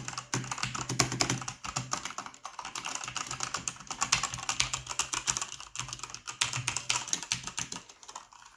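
Fast typing on a Corsair K95 RGB mechanical gaming keyboard with Cherry MX switches: a dense run of key clacks that thins out near the end.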